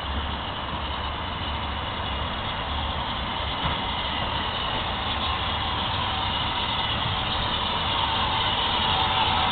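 Small steam tank locomotive coming slowly into a station with a coach: a steady hiss over a low rumble, growing gradually louder as it draws near.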